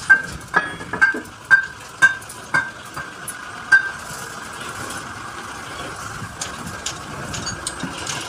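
Sharp metal-on-metal knocks, about two a second, each ringing briefly, as a steel truck lift-axle bush and bracket are worked with a metal tool. The knocks stop about four seconds in, leaving a steady hiss with light clicks.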